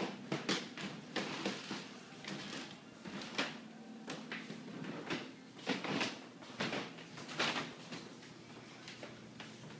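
Footsteps on a hardwood floor, irregular knocks about one or two a second, with handling knocks from a phone carried in the hand, over a faint steady hum.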